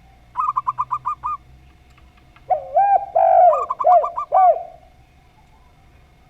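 Doves cooing: a zebra dove's quick run of about eight short, high coo notes, then a spotted dove's lower, louder coos about two and a half seconds in, with more of the zebra dove's quick notes over them.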